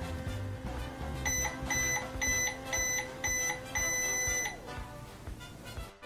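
Toy microwave beeping as its timer runs out: six short, high electronic beeps about twice a second, the last one held longer, over background music.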